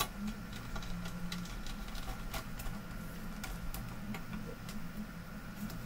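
Scattered light clicks and ticks of small screws and parts being handled on a monitor's metal chassis and circuit board, over a steady low hum.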